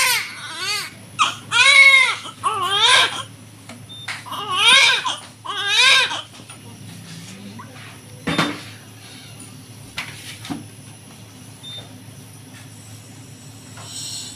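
Newborn baby crying in about six short, high wails over the first six seconds, then falling quiet, with a single knock about eight seconds in.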